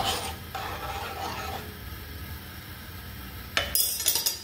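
A metal spoon stirs and scrapes in a stainless steel skillet of sauce, starting with a sharp clink and scraping for about a second and a half. Near the end comes a quick run of metal clinks as the spoon knocks against the pan.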